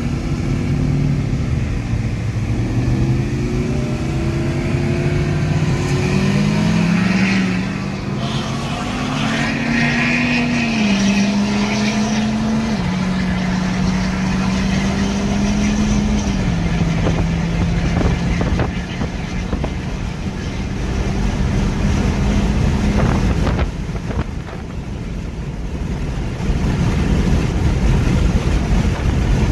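Vehicle engine accelerating through the gears, heard from inside a moving car over steady road rumble: its pitch climbs, then drops in a series of steps at each upshift in the first half, and settles into a steady cruise.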